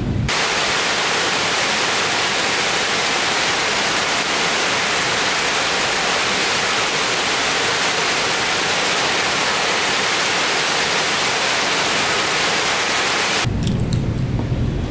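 Rain falling steadily on leafy trees and shrubs, an even hiss that cuts off sharply near the end and gives way to a lower rumbling noise.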